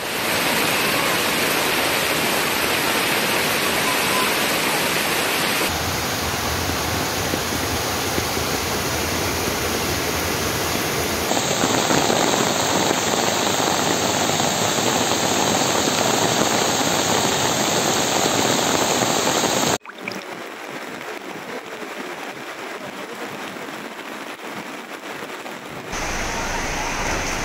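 Fast-flowing floodwater rushing and churning, a dense steady noise. The sound changes abruptly several times and drops quieter for a few seconds about twenty seconds in.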